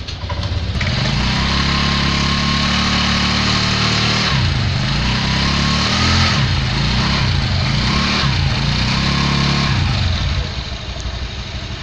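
Honda Vario 125 scooter engine running, its revs changing a few times in the middle and dropping back near the end.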